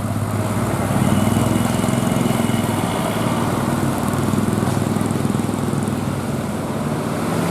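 A bus engine running steadily close by, louder from about a second in.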